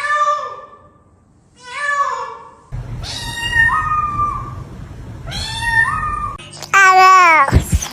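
Domestic cat meowing: five short meows about a second or two apart, then a louder, longer meow near the end.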